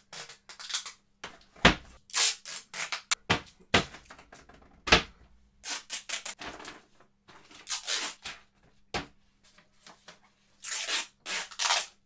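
A large paper poster crinkling and rustling as it is handled and put up on a wall, with a few sharp knocks among the rustles.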